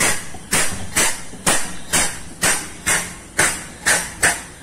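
Air-powered vacuum pump knocking in a steady drum-like beat, about two knocks a second. It is running fast and light, the sign of a pump drawing little or no oil yet.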